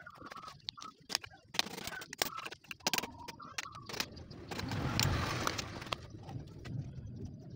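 Clinks and knocks of metal engine parts handled by hand as the cylinder block and piston come off a Yamaha Vega ZR's small single-cylinder engine during a piston replacement. There is a broader rushing swell of noise about five seconds in.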